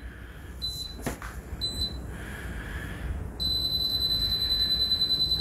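Superfit (Goplus 2-in-1) folding treadmill beeping twice as it is switched on by remote. About three seconds in its motor starts the belt, with a steady high whine and a rhythmic pulse.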